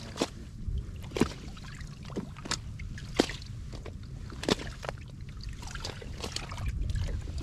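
Water lapping and slapping against a kayak hull, with irregular sharp ticks over a steady low rumble.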